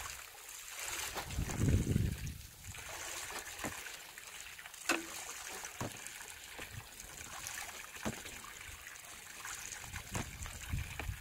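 Water trickling as soaked wood-chip and leaf compost material drains, with the steel tines of a manure fork scraping and clicking through the wet material in a plastic tub. A dull thump about two seconds in is the loudest sound.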